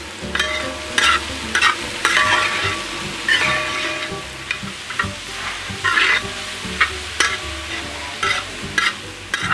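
Onions frying in hot oil in an uruli, a wide metal cooking pot, sizzling steadily while a spoon stirs and scrapes them against the pot in irregular strokes about once or twice a second.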